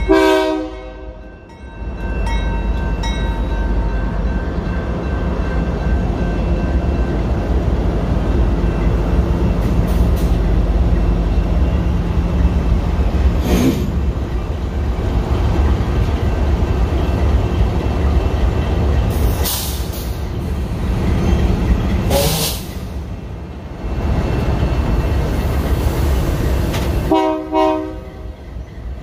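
Diesel locomotive horn sounding briefly at the start and again near the end, over the steady low rumble of a freight train moving on the track.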